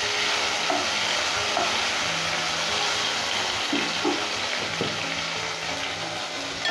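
Ground green chillies and nigella seeds sizzling steadily in hot mustard oil in a non-stick kadai, stirred with a wooden spatula at first and then left to fry.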